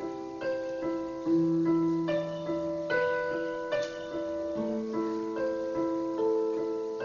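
Piano playing a slow, gentle melody over held bass notes, a new note roughly every half second.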